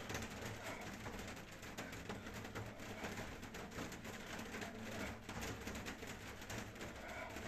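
A person breathing hard from exertion after a set of jump squats.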